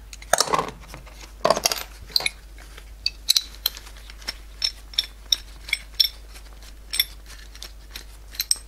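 Steel two-piece bearing puller for a snowmobile's suspension bogie being unscrewed by hand: a string of light metal clinks and taps, with a couple of heavier knocks in the first two seconds.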